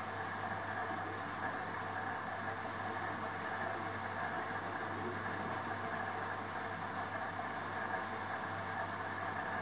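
LG Direct Drive front-loading washing machine partway through a 60-degree wash: the drum turning a load of bedding, with a steady hum and a few steady higher tones and no separate knocks.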